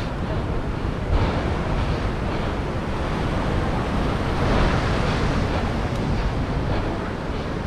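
Steady rush of ocean surf mixed with wind buffeting the microphone, swelling briefly about halfway through.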